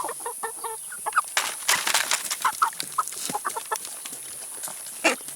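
Chickens clucking in short calls while pecking at food, with frequent sharp pecking clicks.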